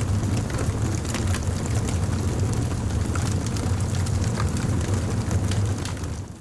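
Record Power Coronet Regent wood lathe running, a steady low hum under a hiss, with a few faint ticks. It fades out near the end.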